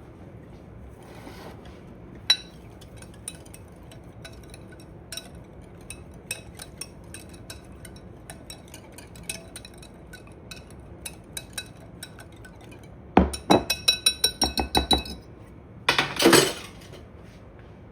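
Wire whisk clinking against the bowl while mixing a yogurt, vinegar and oil dressing, with light scattered taps and then a quick run of about ten sharp taps, followed by a short scrape.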